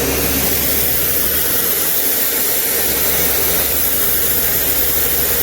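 Truck engine running with a steady low drone under an even, constant hiss.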